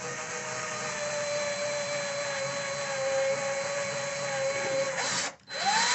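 Cordless drill running steadily as it bores a screw hole through an aluminium mirror rail into the wall stud, its motor whine holding one pitch. About five seconds in it stops briefly, then gives one short burst that rises and falls in pitch.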